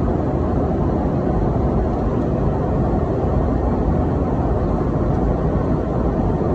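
Steady cabin noise of a jet airliner in cruise flight: engine and airflow noise making a deep, even rush with no change.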